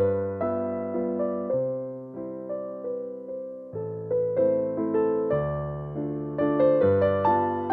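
Background piano music, a melody of single notes and chords, each struck and then fading.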